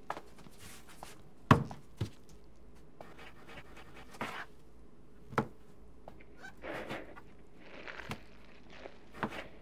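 Food preparation at kitchen counters: pizza dough being worked by hand in a bowl, with a few scattered knocks of utensils and bowls on the counter and soft rustling and breathing sounds.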